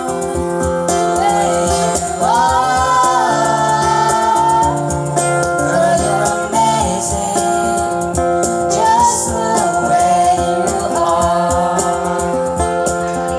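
Slow pop ballad music: a held, gliding sung melody over sustained chords and a steady beat.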